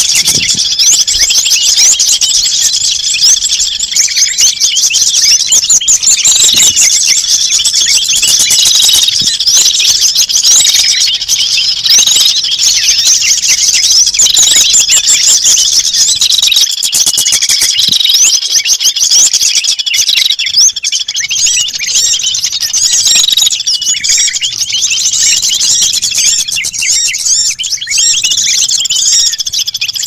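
Dense, loud chorus of many small songbirds chirping and twittering without pause, with a short note repeating about once a second through much of it. It is a lure call mix meant to draw wild small birds in.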